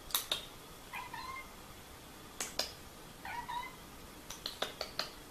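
Long-haired domestic cat giving two short meows, about a second in and again after three seconds, between several sharp clicks that are louder than the meows.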